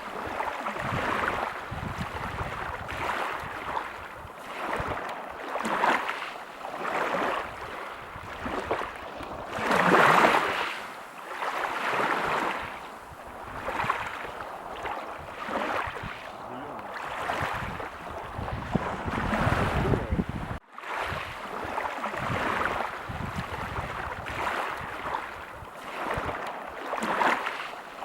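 Ocean surf breaking on a beach: a continuous wash of waves that swells and recedes every few seconds, with the biggest surge about ten seconds in. The sound cuts out for an instant about two-thirds of the way through.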